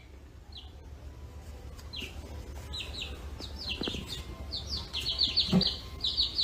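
Small birds chirping: quick, short, high chirps that slide downward and come more and more often, with a soft low thump about five and a half seconds in.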